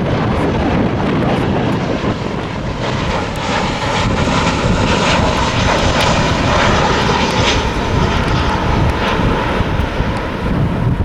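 Jet airliner's engines running loud and steady, a rushing roar with a steady whine on top, with wind gusting on the microphone.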